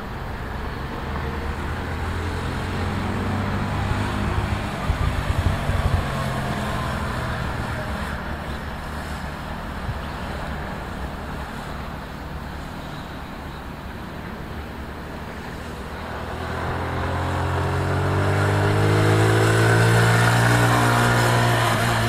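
Sport motorcycle engines running on a kart circuit, with one bike accelerating and revving up, growing louder from about three quarters of the way through. Brief wind gusts hit the microphone a few seconds in.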